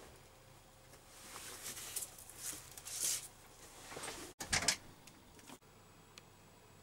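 Clothing rustling as two people hug, the nylon of a padded winter parka giving several soft rustles. A brief louder rustle comes about four and a half seconds in, after a cut.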